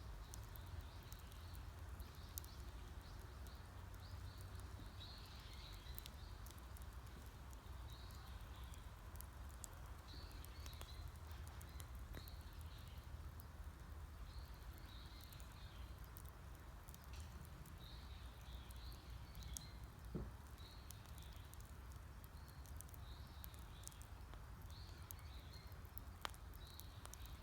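Faint wood fire crackling with scattered sharp pops. A bird calls over it in short high chirps, repeating about every second or two.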